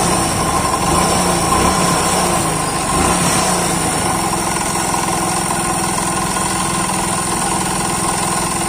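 Hero Splendor's single-cylinder four-stroke engine running steadily at idle with a knocking, rattling sound from the crank. The flywheel magnet shifts in and out as it runs, a sign of crankshaft end play at the crank bearings, which the mechanic cures by fitting shims under the bearings.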